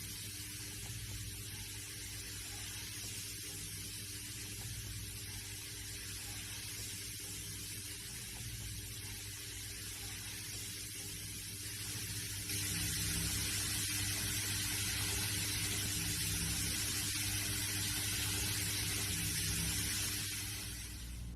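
A steady hissing noise over a low hum; the hiss grows louder a little past halfway and falls back shortly before the end.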